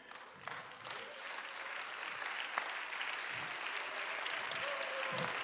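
Congregation applauding, starting about half a second in and building to steady clapping.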